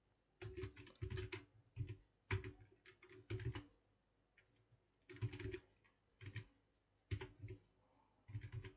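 Computer keyboard being typed on: clusters of quick keystrokes in short bursts, with pauses of up to about a second between them.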